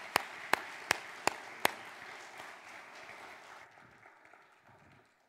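Congregation applauding, with one person's sharp claps close to the microphone, about three a second, stopping a couple of seconds in. The crowd applause then dies away over the next couple of seconds.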